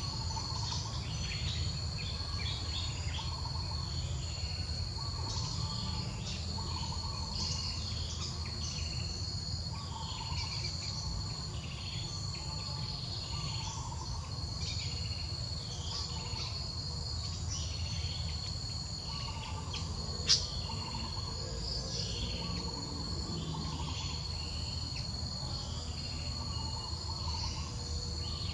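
Forest ambience: a steady high-pitched insect drone with birds chirping over it every second or so, and a low rumble underneath. One sharp click about twenty seconds in.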